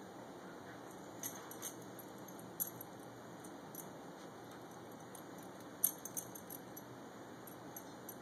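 Metal ID tags on a husky's collar jingling and clinking in a few short, sharp bursts as the dog leans into the basket to sniff the puppy, the loudest clink about six seconds in, over a steady faint hiss.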